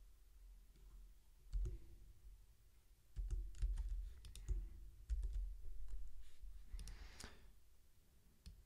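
Scattered clicks of a computer keyboard and mouse in a few small groups, with a short rush of noise about seven seconds in.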